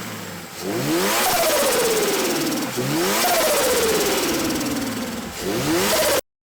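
Car engine revved three times, each rev climbing quickly and then falling slowly back; the sound cuts off abruptly near the end.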